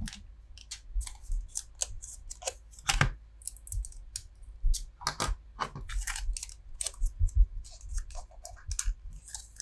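Small folding scissors clicking and a foil booster-pack wrapper crinkling as the pack is cut open and the tightly packed trading cards are handled. It comes as an irregular run of sharp clicks and crackles.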